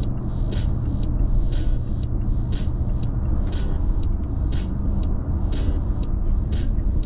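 Mazda SUV cabin at freeway speed: steady low road and engine rumble. Over it a sharp, high tick repeats about once a second.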